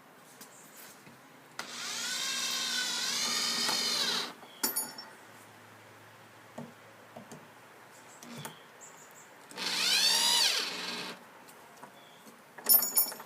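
Cordless drill driving screws in two runs, the first about two and a half seconds and the second about a second and a half, its motor whine rising and dipping in pitch. A few sharp clicks follow each run. The screws are left not fully tight.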